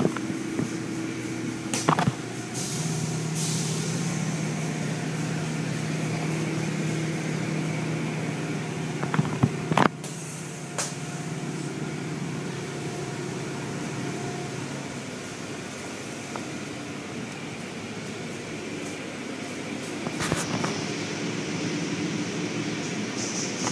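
Automatic car wash machinery running: cloth wash strips and brushes scrub a foam-covered car against a steady wash of mechanical noise. A low motor hum holds through the first half, and a few sharp knocks stand out.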